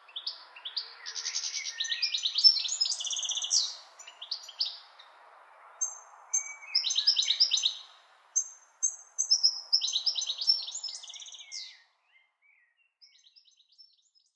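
Small songbirds singing in quick runs of high chirps and rapid trills, three phrases of a few seconds each, over a faint steady background hiss. The sound stops about twelve seconds in, leaving only a few faint chirps.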